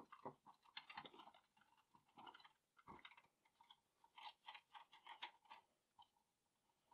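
Faint, irregular rubbing and scuffing of a soft cloth wiped over the painted body of a 1:18 scale diecast model car, held in nitrile-gloved hands.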